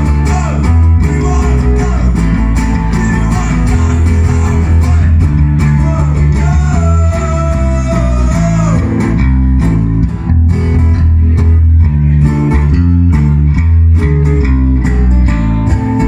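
Live band playing an almost-acoustic rock number: strummed acoustic guitars over a bass guitar line and drums, loud and continuous.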